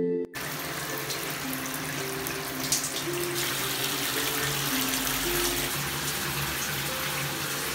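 Water running from a tap into a plastic baby bathtub as it fills: a steady, even rush of water.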